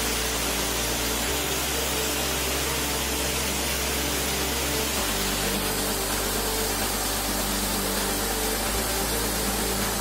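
Steady rushing of a waterfall pouring over rock tiers into a pool.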